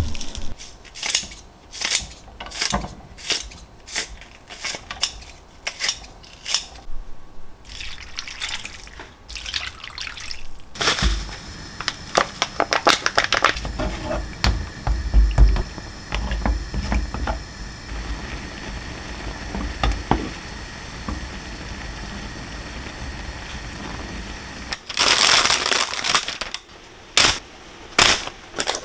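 Home kitchen cooking sounds. First comes a run of sharp knocks. Then tteokbokki simmers in a frying pan, with a low rumble and steady hiss as it is stirred with a wooden spatula. Near the end there is a brief loud burst of noise, followed by light clicks as fried dumplings are set into a paper-lined basket with chopsticks.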